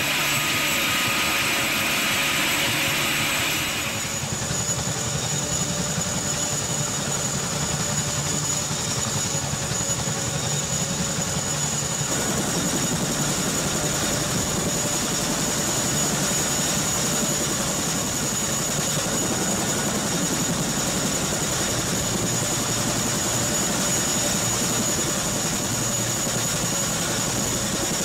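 CH-47 Chinook tandem-rotor helicopter running: steady turbine and rotor noise with a thin, high, constant whine over it. The sound shifts a little about four seconds in and again around twelve seconds.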